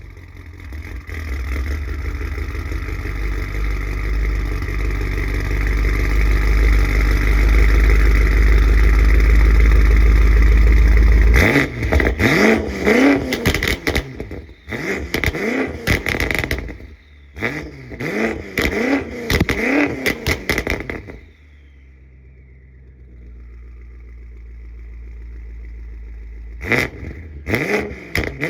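Tuned BMW M5 Competition's twin-turbo V8 through its titanium Valvetronic exhaust, idling loud and deep just after a cold start, then revved in a string of quick throttle blips for about ten seconds. It settles to a much quieter idle, with two more sharp blips near the end.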